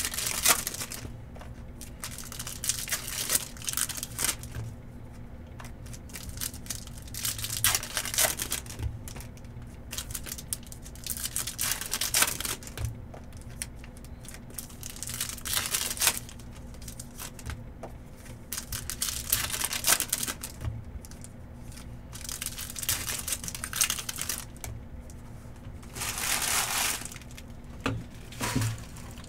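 Baseball card pack wrappers being torn open and crinkled by hand, in short rustling bursts every few seconds, the longest near the end. A low steady hum runs underneath.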